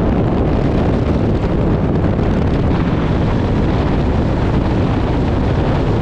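Loud, steady wind noise buffeting the camera microphone: a continuous rush, heaviest in the low end, with no distinct engine note.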